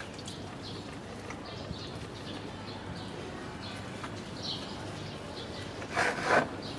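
Faint bird chirps over low background noise, with a short loud burst of noise about six seconds in.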